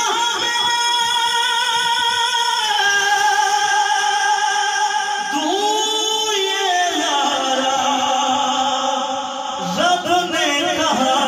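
A man singing into a microphone through a PA loudspeaker in a devotional style, holding long, drawn-out notes and sliding between pitches about halfway through and again near the end.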